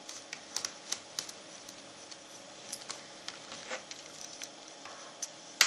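Faint, irregular small clicks and ticks of a 00 screwdriver working the battery cover screw on a Nintendo DS Lite's plastic shell.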